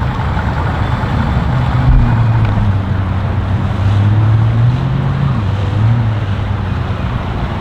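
An engine running low and steady, its hum shifting slightly in pitch and swelling around the middle, under a wash of wind noise on the microphone.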